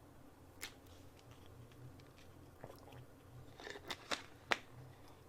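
Faint, scattered crunching clicks close to the microphone: one about half a second in, then a cluster of sharper ones in the second half.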